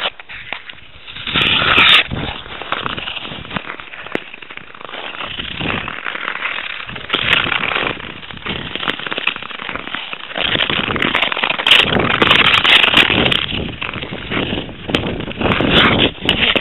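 Rough crackling and scraping noise close to the microphone, with scattered sharp clicks, from skates and handling of the camera on pond ice. It grows louder in the second half.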